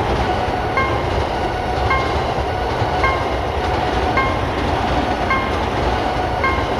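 A train running past with steady, dense rail noise, while a Japanese level-crossing warning bell dings about once a second over it.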